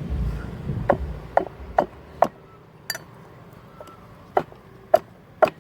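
Sharp, separate knocks of tools on metal during motorcycle reassembly, about eight at irregular spacing. A low rumble underneath fades out in the first couple of seconds.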